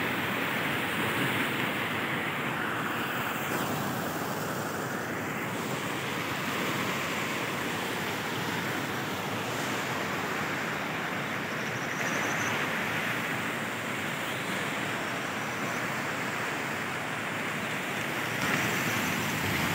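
Mountain stream rushing over rocks, a steady rush of water.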